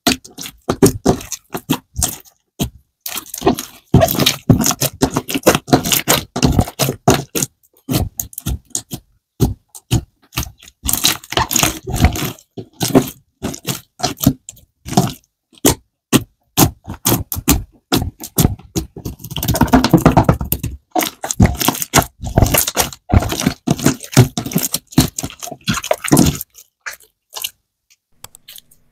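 Clear glitter slime being squished, poked and stretched by hand: dense runs of wet clicks, pops and crackles as trapped air pockets burst, in bursts with short pauses, dying away in the last couple of seconds.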